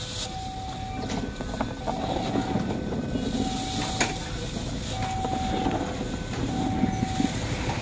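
A train passing with a steady low rumble. A faint two-note tone alternates over it, each note held under a second.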